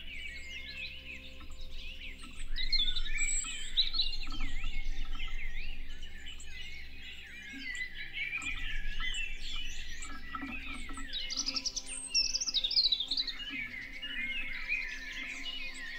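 Many songbirds singing at once: a dense, unbroken chorus of overlapping chirps, warbles and trills, swelling louder twice.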